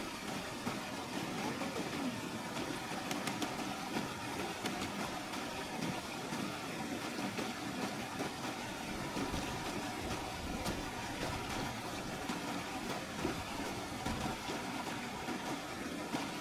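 Steady rushing of a river and small waterfall, with a few faint clicks of a knife blade on a freshwater mussel shell.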